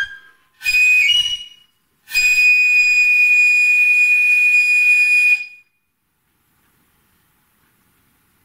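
Shinobue, the Japanese bamboo transverse flute of festival hayashi, playing alone: a short phrase of a few stepped notes, then one long high note held for about three seconds.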